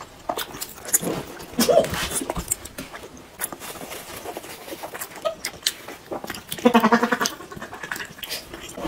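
Close-miked eating sounds: wet lip smacks and chewing clicks. About seven seconds in comes a short, wavering, whine-like vocal cry.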